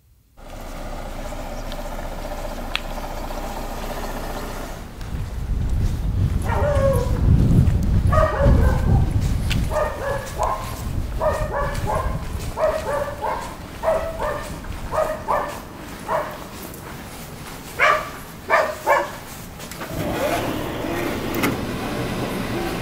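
A series of short animal calls, each dropping in pitch, repeated about once or twice a second over a low rumble; near the end come three sharper, louder calls.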